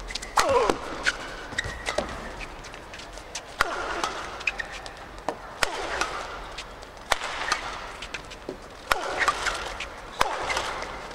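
Badminton doubles rally: a run of sharp racket hits on the shuttlecock, about one every second or so. Between the hits, shoes squeak on the court floor.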